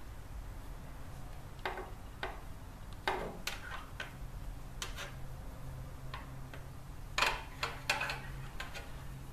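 Irregular light clicks and taps of a coil of soft 1/4-inch copper tubing being handled, its turns knocking against each other and the tabletop as they are spaced out by hand.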